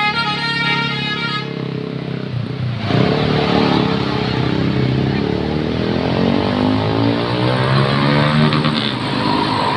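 Basuri multi-tone bus horn playing a short melody that stops about a second in, followed about three seconds in by a loud bus engine as the bus drives past.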